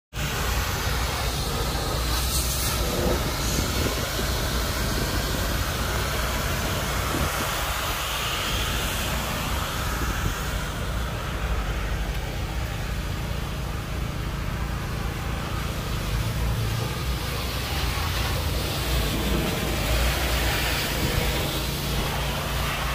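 Vehicle engines running steadily: a low rumble under an even hiss, with no distinct revs or events.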